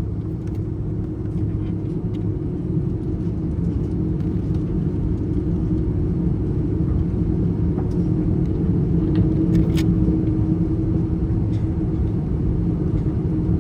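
Airbus A330 cabin noise while taxiing to the runway: a steady low rumble of the jet engines and airframe with a constant hum, slowly growing louder, and a few light clicks.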